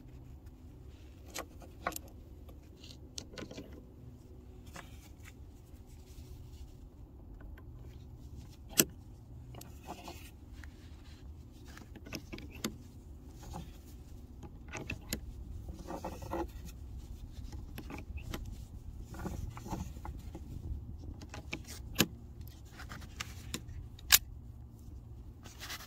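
Loading a Smith & Wesson Model 629 .44 Magnum revolver: scattered metallic clicks and clinks of cartridges being handled and pushed into the six-round cylinder, with a few sharper clicks, about nine seconds in and twice near the end.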